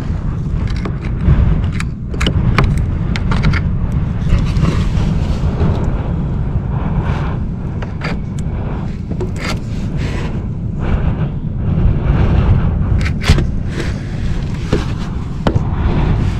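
Steel RV slide-out cable being pulled by hand through its pulley housing: irregular metallic scrapes and clicks over a steady low rumble.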